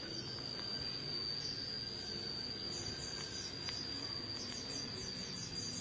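Steady high-pitched insect trill, with short rapid chirps coming and going above it, busiest in the second half.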